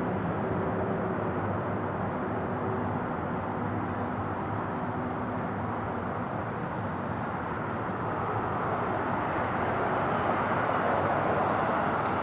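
Jet engines of a Boeing 777 airliner in flight, a steady broad roar that swells louder in the last few seconds.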